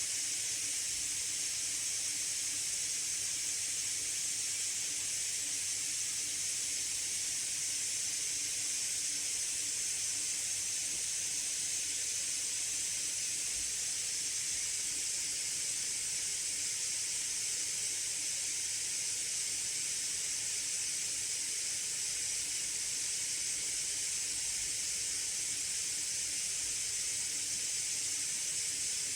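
MSI Raider GE78HX gaming laptop's cooling fans running hard under a full benchmark load: a steady, even, high-pitched hiss with a faint low hum beneath it.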